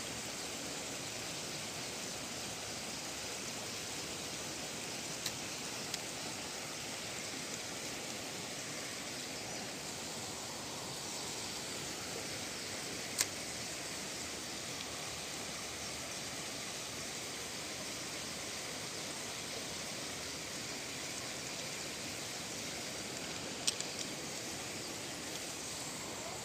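Steady rushing of flowing water in an irrigation channel, with a few short sharp ticks.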